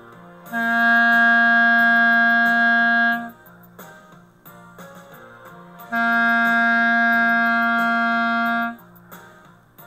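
Soprano clarinet playing the note C as two long held tones, each about three seconds, clear and steady, with a short rest between them.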